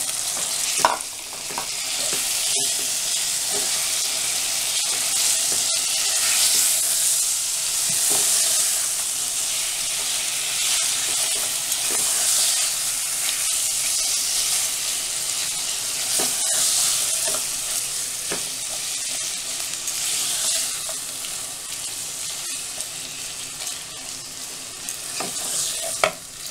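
Minced meat (keema) sizzling in hot oil with onions and spices in a nonstick pan while a wooden spatula stirs and scrapes it, browning it in the bhuna stage. The frying hiss swells and eases as the meat is turned and falls off a little near the end.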